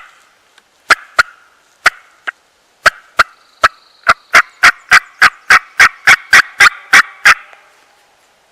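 Turkey hen yelps, loud and close: a few scattered yelps, then a long even run of about three a second that stops suddenly a little after seven seconds in.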